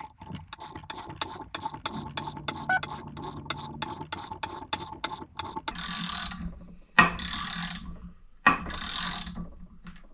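Damping clicker adjuster on a WP XPLOR motorcycle rear shock being turned through its detents, an even run of about four clicks a second, counted to record the stock setting. It is followed by three short scratchy rubbing sounds.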